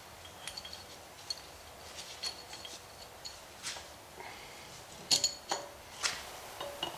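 Small steel parts and tools clinking and tapping against each other, several strikes with a short metallic ring, during pinion and yoke installation on a differential. A louder cluster of clinks comes about five seconds in, and another strike just after six.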